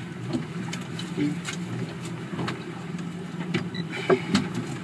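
Boat engine idling with a steady low hum, with a few sharp clicks and knocks from gear being handled on deck.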